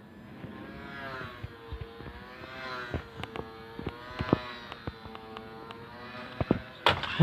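Small electric motor and propeller of a Horizon Hobby Sport Cub S RC plane whining in flight, its pitch rising and falling with throttle and passes. A sharp impact near the end as the plane crashes.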